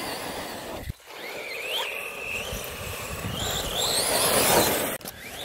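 The brushless electric motor of an FTX Outlaw RC buggy whines, its pitch rising and falling with the throttle, over a steady rushing noise from the tyres and the run across loose gravel. The sound drops out briefly about a second in and again near the end.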